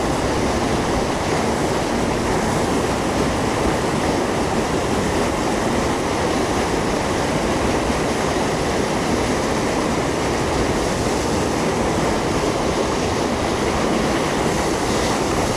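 Loud, steady rush of water pouring over a small waterfall into a fast-moving current.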